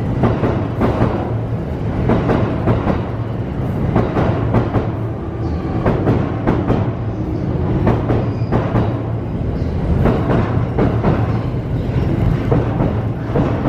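Cassiopeia sleeper train's E26-series coaches rolling slowly past as the train departs, wheels knocking and clattering over rail joints and points at irregular intervals, over a steady low hum.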